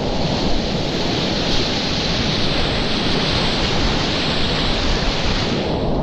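River whitewater rushing loudly and steadily around a kayak, heard close up, with a rough low rumble underneath. The higher hiss of spray fades out near the end.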